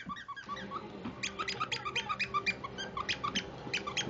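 Rapid run of short high-pitched squeaks, several a second, as two dogs play together.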